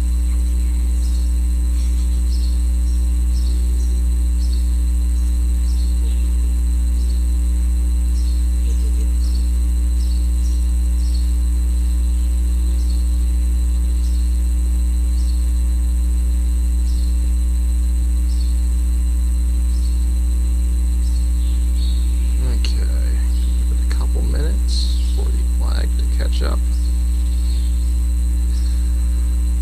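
Loud, steady electrical mains hum on the audio feed, a constant low drone with fainter overtones. Faint voices can just be heard in the background about three-quarters of the way through.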